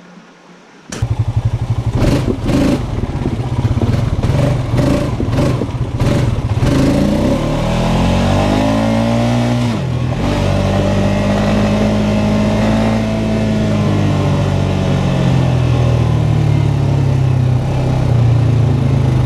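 ATV engine running while being ridden, cutting in abruptly about a second in, with several sharp clacks over the following few seconds. Its pitch climbs, drops sharply about ten seconds in, then holds fairly steady.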